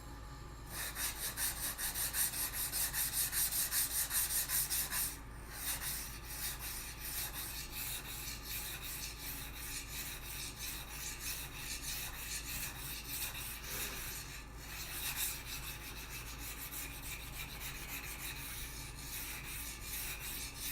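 High-carbon steel butcher's knife stroked back and forth across a coarse 200-grit water stone, a run of rapid, even scraping strokes, about three a second. The strokes are heavier for the first five seconds or so, then lighter and steadier.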